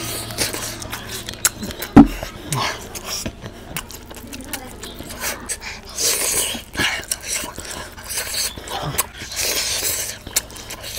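Close-up eating sounds of a man biting and chewing curried meat and rice off his hand: wet chewing, lip smacks and slurps. A single sharp, loud knock comes about two seconds in, and louder slurps come near six and nine seconds in.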